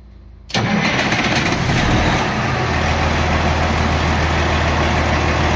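Scania V8 diesel engine with a mechanical injection pump starting up about half a second in, already slightly warm, and settling into a steady idle.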